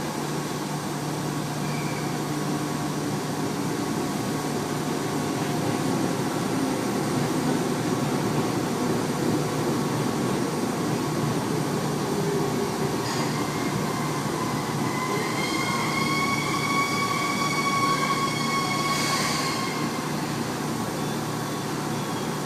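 Tobu 30000 series electric train running, heard from inside the car: a steady rumble of wheels and motors under a constant low hum. About halfway through, a high whine with an overtone above it sets in, then fades out a few seconds before the end.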